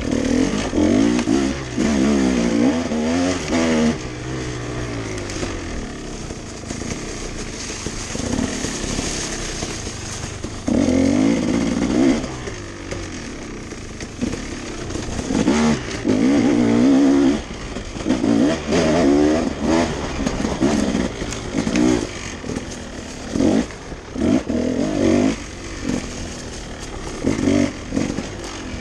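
Dirt bike engine revving in repeated bursts of throttle, rising in pitch and dropping back between them, as the bike is ridden off-road.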